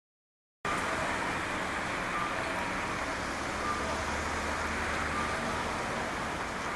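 Silence, then about half a second in a steady outdoor traffic ambience starts abruptly. A low engine rumble runs through the middle stretch, and a few faint short high tones come and go.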